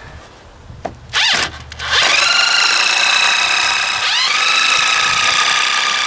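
Corded electric drill starting with a short burst, then running at full speed with a steady whine that dips and climbs back about four seconds in as it works into a piece of scrap lumber.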